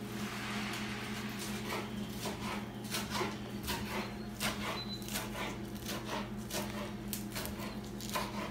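Kitchen food preparation: irregular light knocks and clicks of dishes and utensils being handled on a counter, over a steady low hum.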